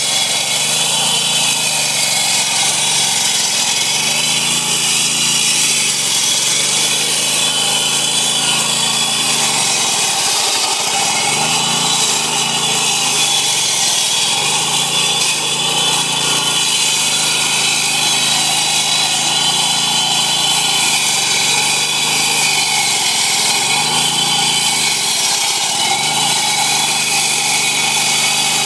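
Walk-behind asphalt road saw cutting through a road surface: its small petrol engine runs steadily under load while the blade grinds through the asphalt with a high, even grinding sound.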